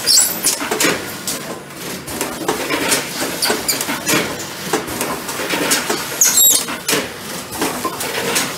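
Katahisado Auto Prester automatic loading and sealing machine running: an irregular, continuous clatter of mechanical clicks and knocks from its transfer heads and conveyor, with high squeaks near the start and again about six seconds in.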